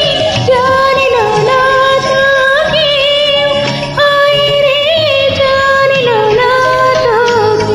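A woman singing a Bengali song over a karaoke backing track, holding long notes with small ornamental bends.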